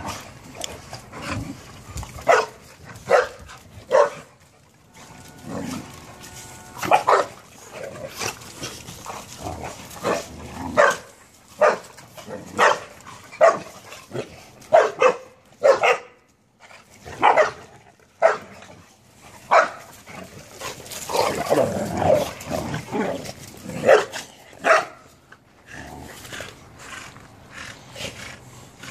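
A pack of puppies play-fighting, barking in short bursts again and again, with a longer rough stretch a little past the middle.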